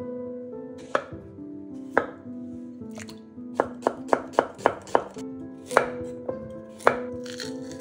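Kitchen knife chopping onion and carrot on a wooden cutting board: single chops about a second apart, a quick run of about seven chops in the middle, then two more single chops.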